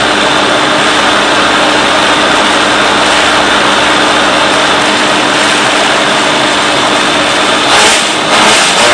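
Countertop blender running steadily, puréeing a full jar of cooked vegetables and chicken broth. Near the end the sound becomes uneven, rising and falling in loudness.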